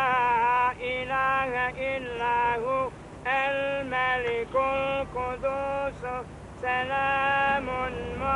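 A man chanting an Islamic religious recitation in long held, ornamented notes, phrase after phrase with short pauses between.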